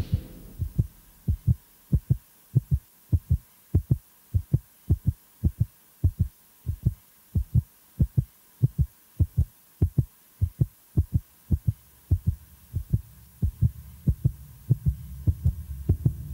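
Heartbeat sound effect for suspense: low double thumps, lub-dub, repeating steadily nearly twice a second. About three quarters of the way through, a low drone comes in and swells under the beat.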